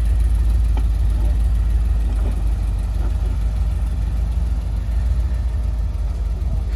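Full-size Ford Bronco's engine running at low revs as the truck crawls up and over a snowy bank, a steady low rumble.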